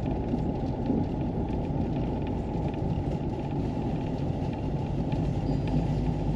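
Steady engine drone and tyre rumble from a vehicle driving slowly on a snow-covered road, heard from inside the cab.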